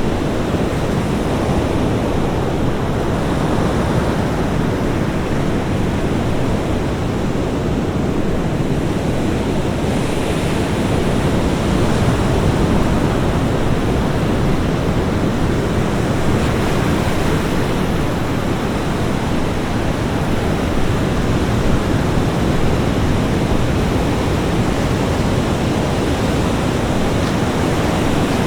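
Ocean surf washing onto a beach: a continuous, dense roar of breaking waves with slight swells as sets come in.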